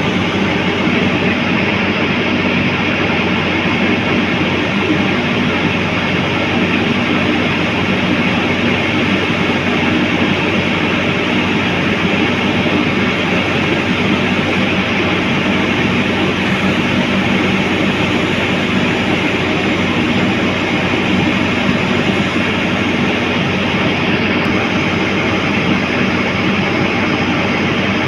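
Heavy construction machinery's diesel engine running steadily and loudly, with a dense mechanical clatter over its low hum.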